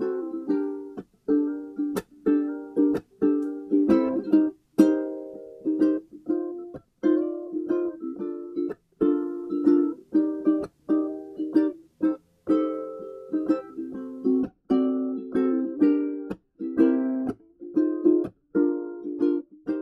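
Background music: a plucked-string tune, ukulele-like, with short notes that die away quickly at about two a second.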